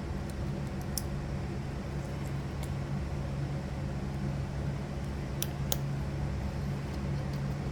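Steady low background hum, with a few small light clicks of score reel parts (clips and springs) being handled and fitted, one about a second in and two close together past the middle.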